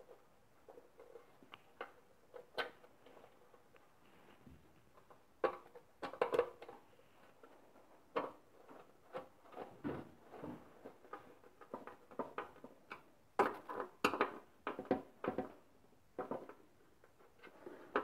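Irregular clicks, taps and light knocks of small parts and screws being handled and fitted by hand, in clusters with short pauses between.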